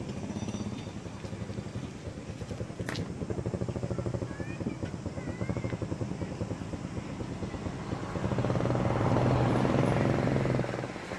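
A motor engine running steadily with a fast, even pulse. It grows louder about eight seconds in and drops again shortly before the end.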